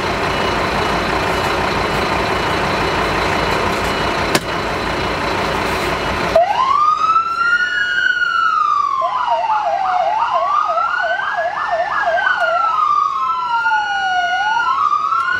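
A fire truck's electronic siren, heard from inside the cab. It starts about six seconds in, rising into a slow wail that sweeps up and down. For a few seconds in the middle a fast yelp of about three sweeps a second plays on top of the wail. Before the siren starts, a loud steady rushing noise fills the first six seconds.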